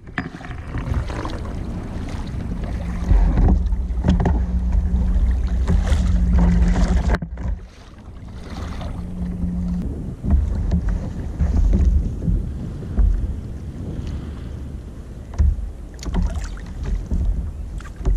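Wind buffeting the microphone in low, uneven gusts, with water lapping against a kayak's hull on choppy sea. The sound drops out briefly about seven seconds in.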